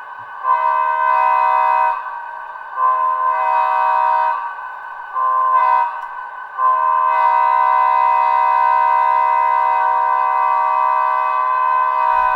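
Bachmann GP35 model locomotive's WowSound DCC decoder sounding a multi-chime diesel air-horn through its small onboard speaker. The pattern is two long blasts, a short one and a final long held blast, the grade-crossing signal, over the decoder's steady engine sound.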